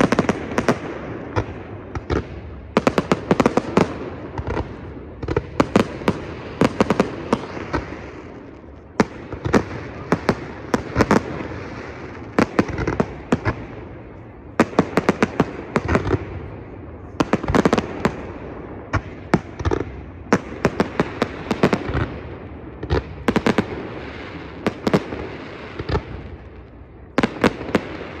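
Aerial fireworks display: shells bursting in volleys of rapid bangs and pops, one cluster after another, with a few short lulls between volleys.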